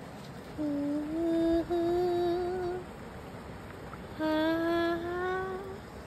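A voice holding two long, wavering notes, each lasting one to two seconds and slowly rising in pitch, with a short pause between them.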